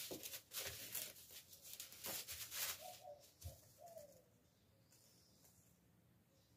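Crepe paper crinkling and rustling in short bursts as it is handled and pressed onto a cardboard piñata, with a pigeon cooing in the background about three to four seconds in.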